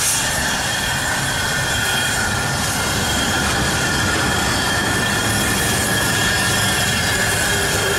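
Narrow-gauge steam locomotive rolling slowly over curved track, its wheel flanges giving a steady high-pitched squeal over a low running rumble.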